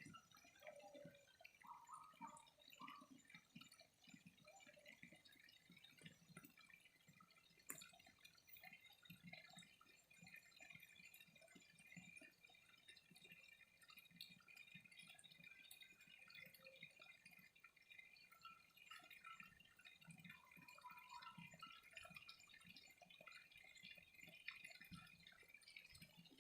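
Faint trickling and dripping water, soft and irregular, over a steady high faint buzz. A few short bird chirps come in near the start and again about two-thirds of the way through.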